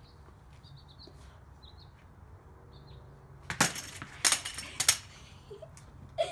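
A bat strikes a metal tripod batting tee and knocks it over. The tee clatters onto the concrete in three sharp metallic bangs, from about three and a half to five seconds in.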